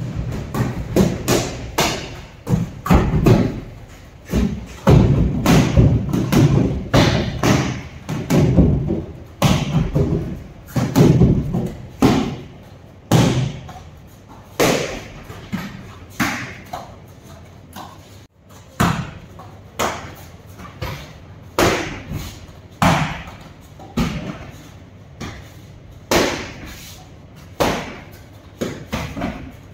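Boxing-gloved punches and kicks landing on free-standing heavy bags and a padded training dummy: repeated heavy thuds in quick combinations, roughly one a second, with short pauses between flurries.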